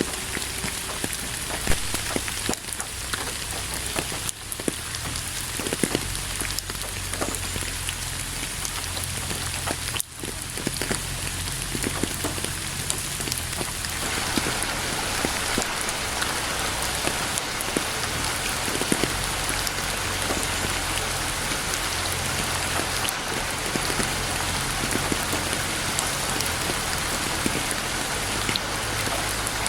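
Steady rainfall on a surface, with many distinct drop impacts; the rain grows denser and a little louder about halfway through.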